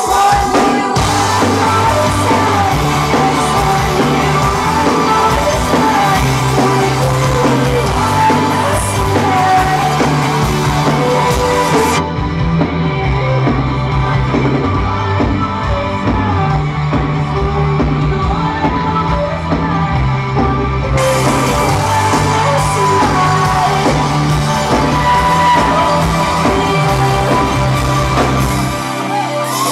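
Live indie-pop/rock band at full volume, heard from the crowd in a club room: electric guitars, bass and drums with a woman singing lead over a stepping bass line. About twelve seconds in the bright top end drops away for roughly nine seconds, then returns. The bass cuts out just before the end.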